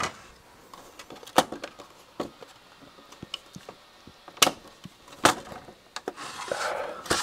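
Scattered clicks and knocks from the front panel and metal chassis of a Keithley 2015 multimeter as its front panel is worked loose, the two sharpest about four and five seconds in, then a rustling scrape near the end.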